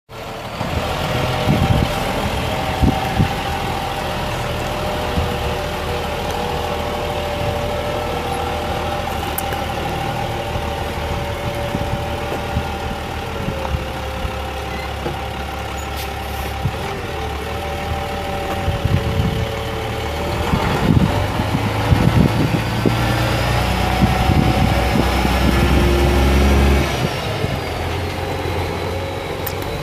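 International 530 8.7-litre inline-six diesel in a dump truck, running at a steady idle. About two-thirds of the way through it gets louder, with a rising whine, then drops back near the end.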